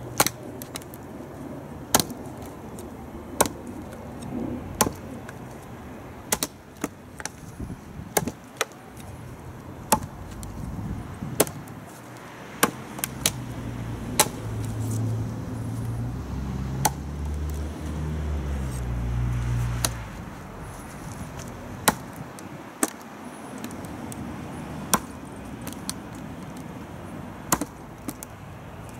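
The point of a TOPS Bushcrafter Kukuri 7 kukri, a heavy 1095 carbon-steel blade, stabbed hard and repeatedly down into a wooden tree stump in a tip-strength test, giving sharp thunks about every second or so. A low engine drone swells and fades in the middle.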